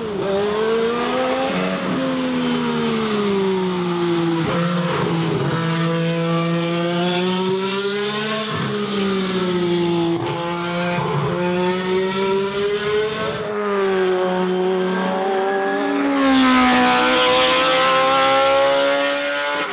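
Turbocharged race car engine running hard, its note climbing and then dropping sharply again and again as it shifts gears. A loud rushing noise joins it about sixteen seconds in.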